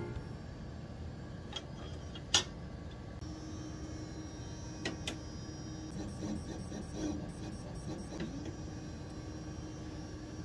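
Microplate reader reading a 96-well plate: a sharp click about two seconds in, then a steady motor whine with a few more clicks and a stuttering, rhythmic run of mechanical sound as the plate is scanned, over a low lab hum.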